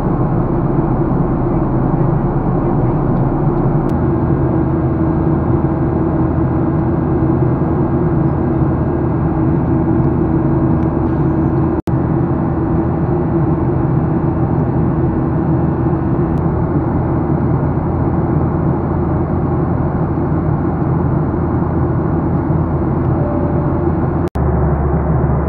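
Steady drone of a jet airliner's engines and rushing air heard inside the cabin during flight, with a constant low hum under it. The sound cuts out for an instant twice, where the recording is spliced.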